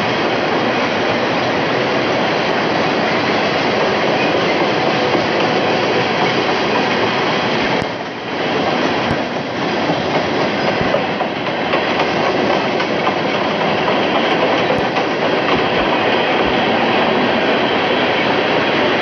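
Freight train cars rolling past: steel wheels on the rails make a steady noise, dipping briefly about eight seconds in and again a moment later.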